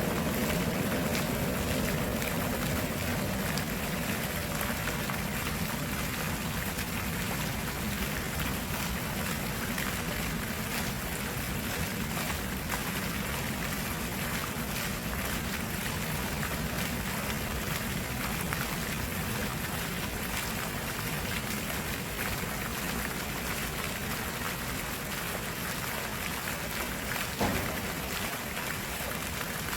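Water running steadily in a stream, an even rushing sound, with one brief knock near the end.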